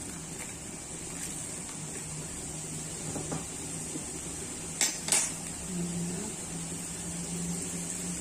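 Two sharp metal clinks of kitchen utensils against cookware, close together about five seconds in, over a steady low hum.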